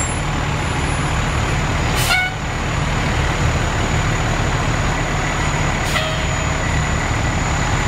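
Fire engines' diesel engines running with a steady low rumble as the trucks roll slowly past. Two brief, sharp sounds about 2 and 6 seconds in.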